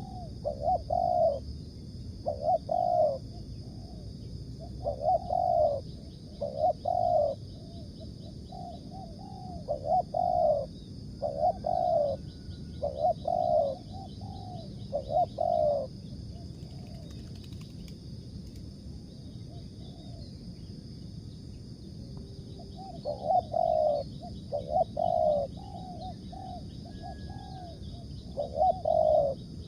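Spotted dove cooing in repeated phrases of short, deep coos, falling silent for several seconds in the middle and starting again near the end. A steady high-pitched hum runs underneath.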